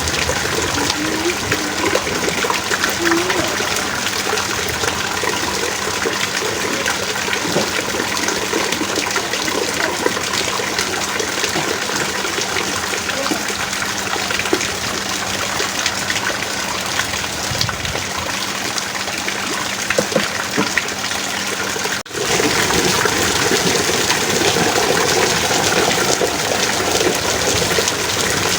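Heavy rain pouring down steadily, with a brief drop-out about three-quarters of the way through, after which the downpour resumes.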